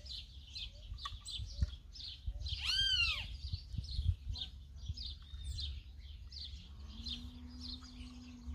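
Birds chirping all through, with one louder arching call about three seconds in. Under it are a low rumble and a few soft knocks, and a steady low hum starts near the end.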